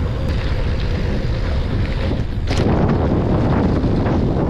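Wind buffeting the microphone over the sound of a gravel bike's tyres rolling on a dirt fire road. About halfway through the ride turns rougher and louder, with a run of short knocks and clatter.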